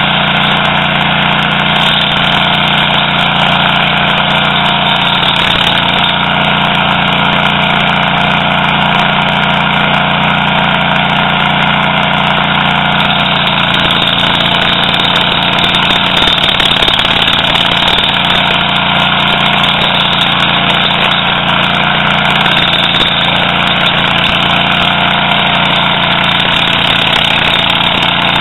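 Toro STX-26 stump grinder's gas engine running steadily.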